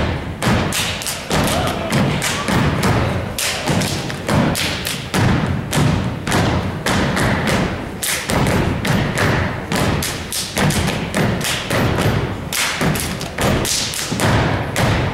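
Youth step team stepping in unison: rhythmic stomps on a wooden stage floor mixed with hand claps and body slaps, a fast, steady beat of sharp hits.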